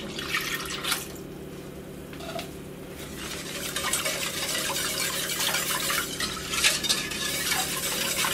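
Milk poured into a stainless steel saucepan, then a wire balloon whisk beating the milk and egg yolk mixture briskly from about three seconds in, its wires clicking and scraping against the pan.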